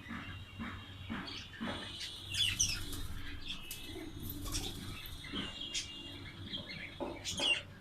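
Domestic pigeons cooing and flapping their wings, mixed with high chirping calls from birds. The loudest chirps come about two and a half seconds in and again near the end.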